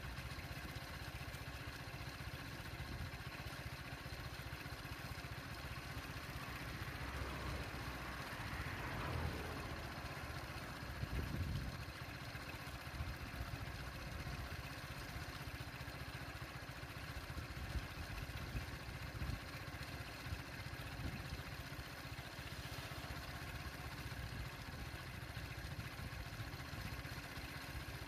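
A vehicle engine idling steadily with a low rumble, with a few brief knocks in the middle.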